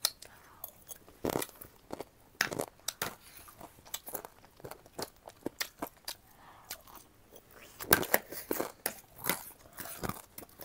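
Close-up crunchy biting and chewing of food: many irregular sharp crunches, loudest about eight seconds in.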